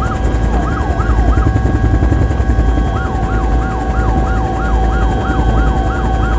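Bell 212 helicopter running, with a deep steady rumble and a steady high turbine whine. A quick falling chirp repeats about three times a second over it, with a short pause about a second in.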